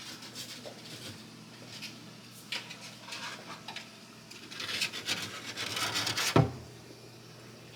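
A rag with baking soda scrubbing grease off a kitchen range hood, in uneven rubbing strokes that speed up past the middle. One sharp knock comes near the end, about six and a half seconds in.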